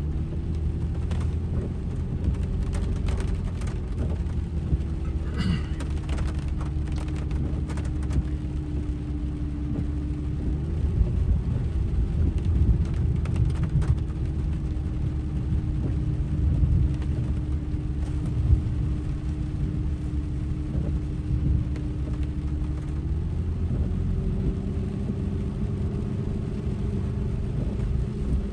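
Pickup truck engine and road noise heard inside the cab while driving slowly on a wet dirt road: a steady low rumble with an engine tone that shifts pitch a few times and rises near the end. Occasional light ticks sound over it in the first part.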